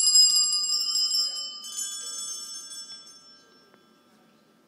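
A bell ringing out with high, clear tones and slowly fading, struck again about one and a half seconds in; it dies away a little past the middle.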